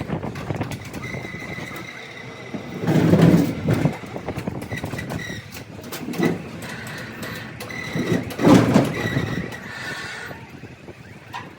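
Workshop mechanical noise: a steady high whine with scattered clicks and knocks, and two louder bursts of clatter about three and eight seconds in.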